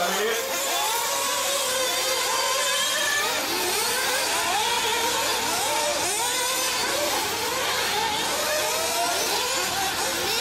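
Several 1/8-scale nitro off-road buggies racing, their small two-stroke glow engines revving up and falling back over and over in overlapping glides of pitch.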